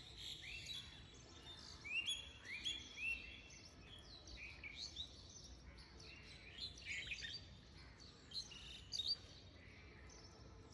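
Small birds chirping faintly: a run of short, quick rising chirps repeated throughout.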